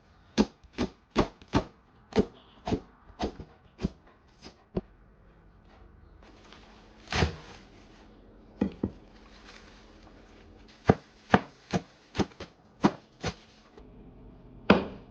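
Knife chopping food on a cutting board: a quick run of sharp strokes, about two to three a second, then a pause with a few single knocks, then another run of strokes.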